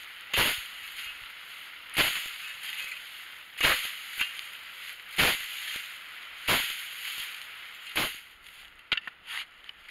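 A long-handled digging tool chopping down into dry grass and dirt to clear the ground: six hard strikes about a second and a half apart, each followed by a brief rustle of grass, then a few lighter knocks near the end.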